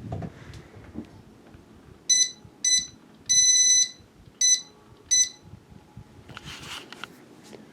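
Ceiling fan speed control beeping five times in a short, short, long, short, short pattern, each a high clear tone, as the fan is set through its speeds.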